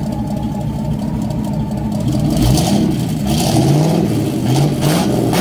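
A vehicle engine revving, its pitch climbing several times in quick succession through the second half.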